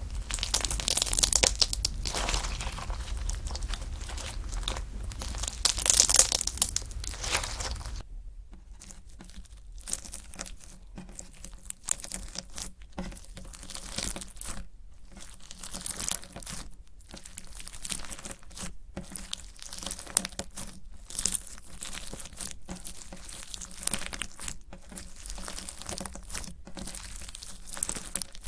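Slime being squeezed and pressed by hand: a dense, continuous crackle for the first few seconds. About eight seconds in it changes to a quieter run of short separate presses with brief pauses between them.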